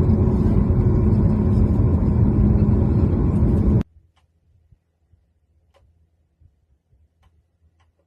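Car engine running with a steady low hum, which cuts off abruptly about four seconds in; near silence with a few faint clicks follows.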